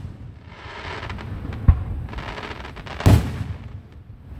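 Fireworks going off: a hiss, a low thud about a second and a half in, then a loud sharp bang about three seconds in.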